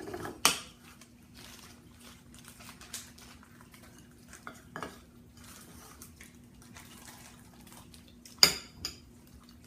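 Spoon clinking and scraping against a bowl while frosting is mixed, in scattered knocks, the sharpest about half a second in and near the end.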